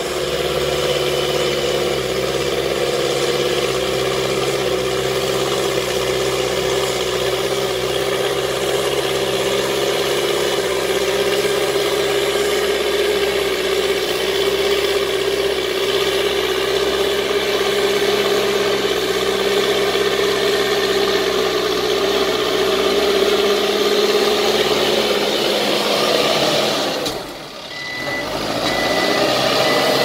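Mahindra SX90 backhoe loader's diesel engine running steadily under load while pushing sand with its front bucket. Near the end, after a brief dip, its reversing alarm beeps at an even pace.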